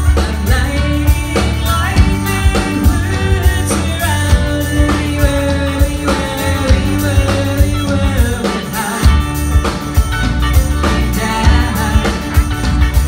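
Live band playing a song: a woman's lead vocal over acoustic guitar, electric bass, drum kit and keyboards. The bass and drums drop out briefly about two-thirds of the way through, then come back in.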